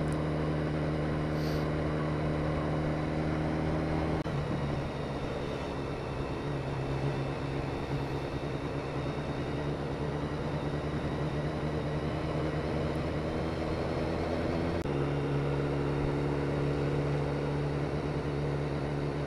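BMW S1000R's inline-four engine running at steady cruising revs, over a steady rush of wind noise. The engine note drops to a lower pitch about four seconds in and climbs back up near fifteen seconds.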